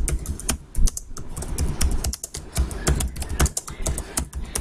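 Typing on a computer keyboard: a run of quick, irregular key clicks with short pauses between bursts.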